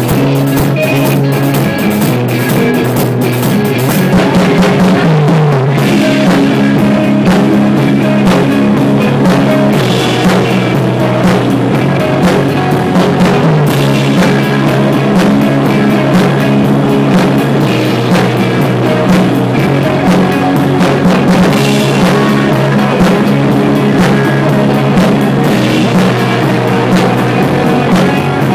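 A rock band playing, heard from beside the drum kit: drums and cymbals with electric guitars and bass holding sustained low notes, loud and continuous, with a few notes sliding down in pitch.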